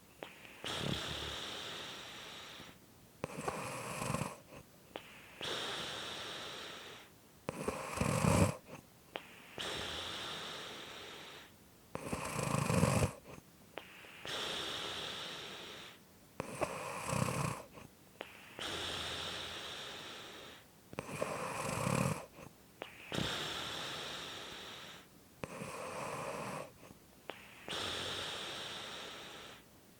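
A sleeper snoring in a slow, even rhythm. About every four and a half seconds a short, loud snore is followed by a longer, hissing breath, seven cycles in all.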